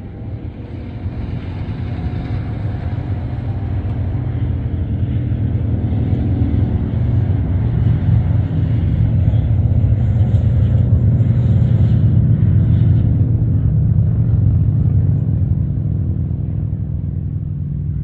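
Low engine rumble of a motor vehicle, swelling slowly to a peak a little past the middle and then easing off, as a passing vehicle does.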